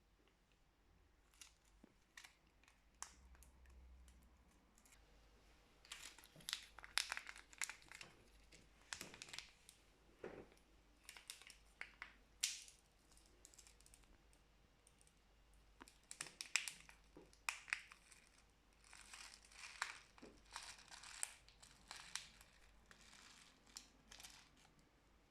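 Plastic packaging crinkling and tearing in irregular bursts as slime containers are unwrapped.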